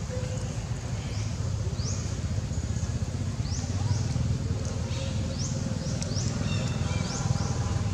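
Outdoor background: a steady low rumble with many short, high chirps, each rising quickly in pitch, repeated irregularly every half second or so.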